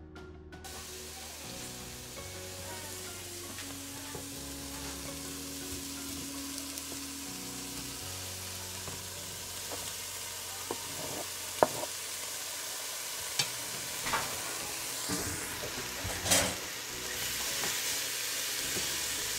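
Broccoli and chicken pieces sizzling in hot olive oil in a pot while being stirred. Several sharp knocks and scrapes from the wooden spoon and cutting board against the pot come in the second half.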